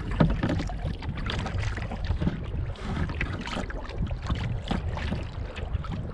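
Wind buffeting the microphone over water lapping and splashing against a kayak hull, with frequent small knocks and clicks as gear is handled in the boat.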